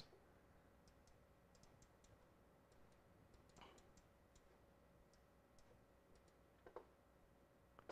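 Near silence: faint room tone with a steady low hum and scattered light clicks.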